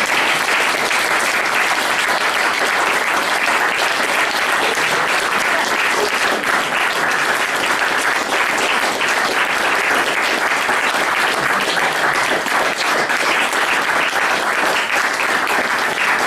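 A small audience applauding: dense, steady hand-clapping that runs without a break.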